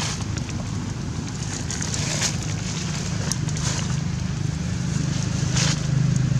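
A steady low hum runs throughout, growing slightly louder toward the end, with scattered crackles and brief rustles of dry leaves about two seconds in and again near the end.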